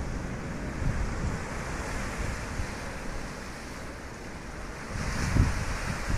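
Ocean surf washing steadily, with wind buffeting the microphone in low rumbles; a louder wave surges about five seconds in.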